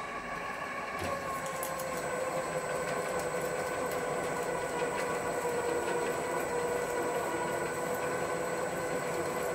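Drill press running steadily with a twist drill boring into an aluminium block held in a machine vise; a click about a second in, then the cutting noise with fine ticks of chips.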